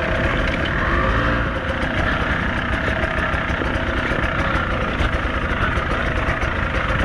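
Beta 200RR two-stroke enduro motorcycle engine running at fairly steady low revs, with a small swell about a second in.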